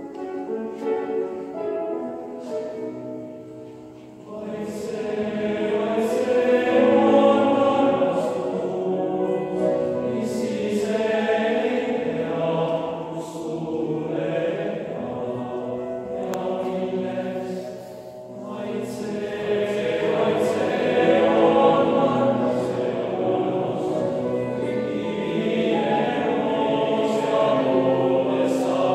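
Tenor-and-bass choir of young male voices singing sustained chords together. The phrases break off briefly about four seconds in and again around eighteen seconds.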